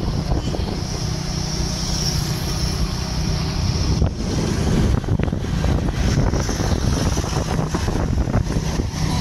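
Wind buffeting the microphone of a moving vehicle, over a steady rumble of road and engine noise.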